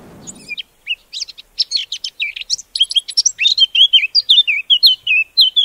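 Eurasian blackcap singing: a quick, varied warble that builds into louder, clear fluty whistled notes in the second half.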